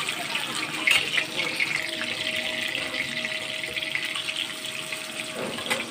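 Rohu fish steaks sizzling and crackling in hot oil in an iron kadai, with a metal spatula knocking against the pan about a second in and again near the end as the pieces are turned.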